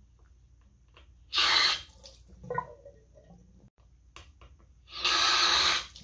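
Bathroom waterfall faucet running in two short bursts as its lever is opened and closed, the first about half a second long and the second about a second long, with faint handle clicks between. The lever had been seized by hard-water buildup and now moves after an apple cider vinegar soak.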